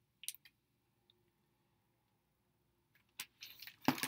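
Quiet room, with a brief rustle near the start and a cluster of short rustles and knocks near the end: a hardcover picture book's pages being handled.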